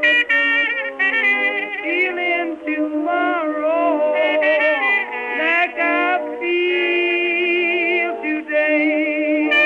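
Blues music with no lyrics sung: a lead melody line that bends and wavers with vibrato over held accompanying notes.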